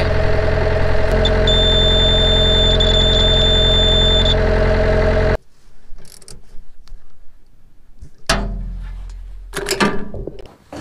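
A 1991 Yanmar B50 excavator's diesel engine idling, with the newly added warning buzzer giving a high, steady tone for about three seconds: the temperature alarm set off by a simulated overheat. The engine sound stops suddenly about halfway through, followed by a few scattered knocks and a thud.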